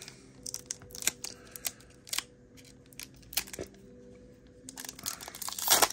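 Foil wrapper of a Pokémon booster pack being torn open by hand, a run of small crackles and clicks with a louder crinkling rip near the end. A faint steady hum lies underneath.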